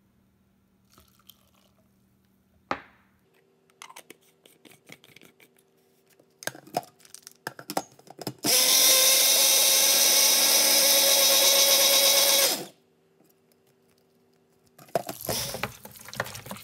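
Personal bullet-style blender running steadily for about four seconds, pureeing half an onion and green chillies with a little water. Before it, clicks and knocks as the plastic cup is fitted onto the motor base; near the end, water splashing in a bowl.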